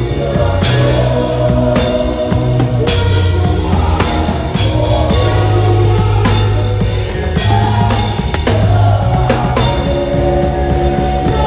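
Drum kit played live with a band, sticks on drums and cymbals, over an electric bass guitar holding low notes and a keyboard.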